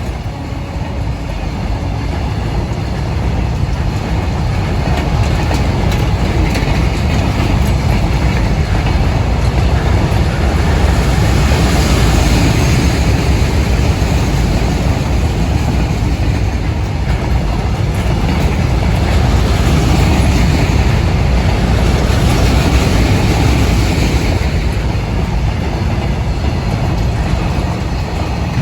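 Freight train of BCNAM covered goods wagons rolling past, the wheels making a steady rumble on the rails that grows louder over the first ten seconds or so and then holds.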